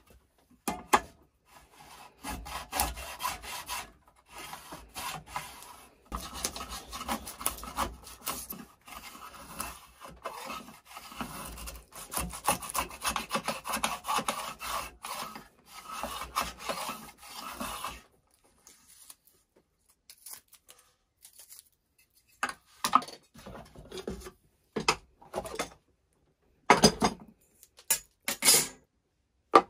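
Stanley bullnose plane cutting wood: a long run of quick rasping strokes, then, after a pause, a few separate strokes near the end.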